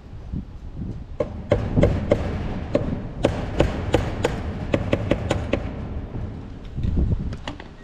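A quick, uneven series of sharp taps or knocks on a hard object, about a dozen over four seconds, with a few more near the end, over a low wind rumble.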